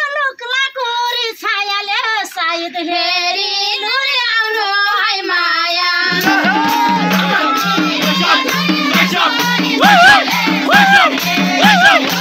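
A woman sings a Nepali dohori folk line unaccompanied, with a wavering, ornamented pitch. About six seconds in, a madal drum and a jingle tambourine strike up a steady beat, and the singing carries on over them.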